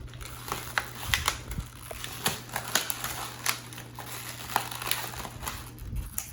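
Plastic toy packaging being opened by hand: irregular crinkling with sharp clicks and snaps.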